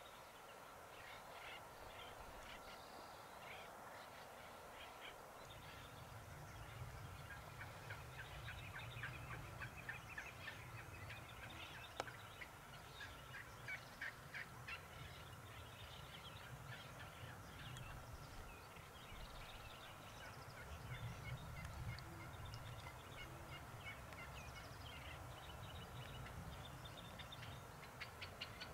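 Wild turkeys gobbling faintly in the distance: repeated rapid rattling gobbles from birds on the roost.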